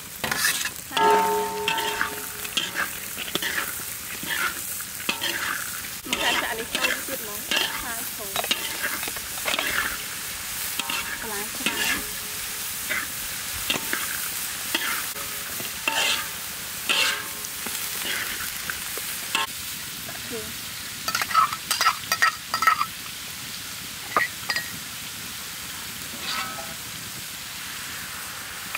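Vegetables stir-fried in a large metal wok: a metal spatula scrapes and clanks against the pan over a steady sizzle, with a flurry of sharper clanks about two-thirds of the way through.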